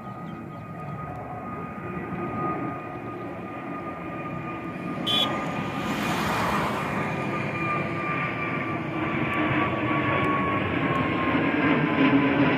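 Jet engines of a climbing Airbus A320-family airliner, a roar that grows louder as it comes overhead. A steady high fan whine slowly drops in pitch, and the low rumble strengthens toward the end. A brief click comes about five seconds in.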